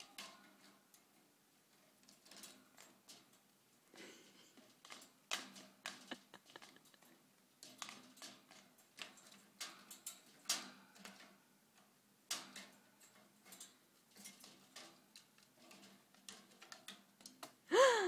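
Budgerigar pecking and tapping at a toy in its cage: an irregular scatter of small clicks and taps, some louder than others.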